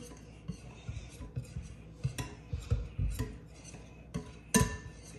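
Wire whisk stirring pancake batter in a glass mixing bowl, its metal tines clinking irregularly against the glass, with one louder knock near the end.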